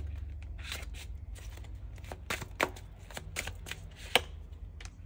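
A deck of tarot cards being shuffled by hand: an irregular run of soft card slaps and ticks, with two sharper slaps, about halfway and about four seconds in.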